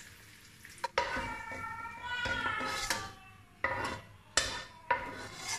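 A perforated metal skimmer working in a non-stick kadai, lifting fried raisins and cashews out of hot ghee. A drawn-out squeaky scrape about a second in is followed by four sharp knocks of the skimmer against the pan.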